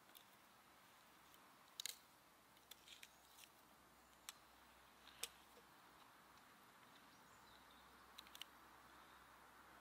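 A smouldering birch-log campfire: faint sharp crackles and small knocks of wood scattered over a soft hiss as the logs are pushed together over the embers. The clicks come in a few small clusters, the loudest about five seconds in.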